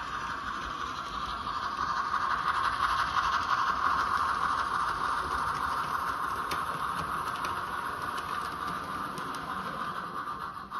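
Model train running on the layout's track: a steady whirring, rattling rumble of the wheels and motor with hiss, swelling a few seconds in as the train passes close and easing off near the end, with faint clicks over the rail joints.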